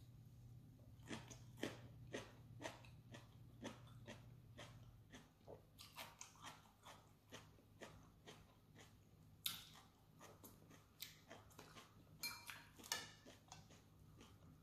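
Close-up chewing of a crisp pan-fried Korean seafood pancake: a run of small wet mouth clicks and crunches, about two a second, with a few sharper clicks in the second half.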